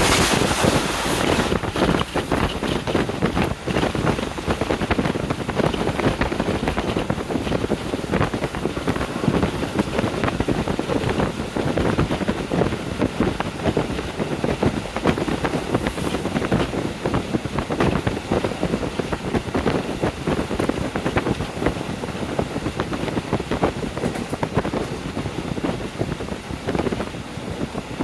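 Wind rushing and buffeting through the open window of a moving KiHa 40 diesel railcar, over the train's running noise on the rails.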